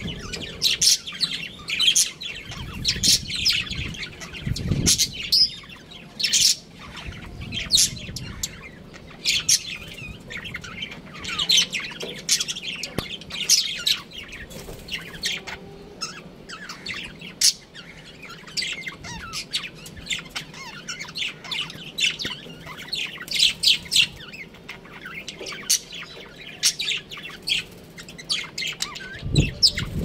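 Budgerigars chirping and chattering without a break: many short, quick, overlapping chirps.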